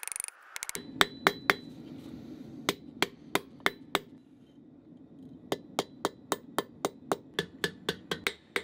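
Blacksmith's hand hammer striking red-hot steel on an anvil, forging a trace hook: sharp ringing blows about three a second, a few in a run, a short pause, then a longer steady run from about five seconds on. A brief hiss right at the start.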